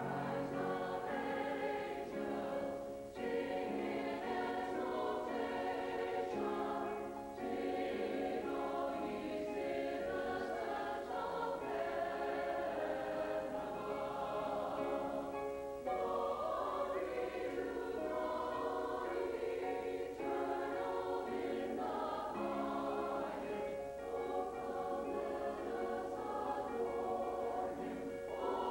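A combined college and community choir singing sustained chords in phrases, with short breaks between them every few seconds.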